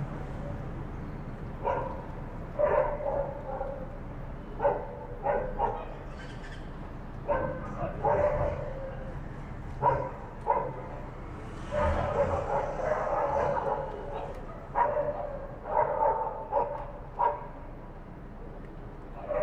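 Dogs barking in short, irregular bursts, with a longer drawn-out stretch of calling about twelve seconds in, over a steady low background rumble.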